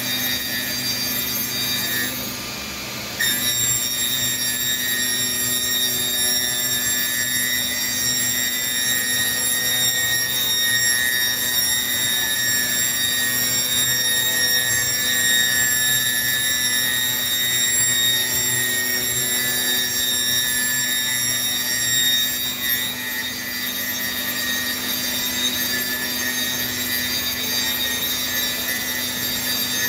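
CNC boring machine running, a steady whine made of several high tones. It drops briefly about two seconds in, then comes back.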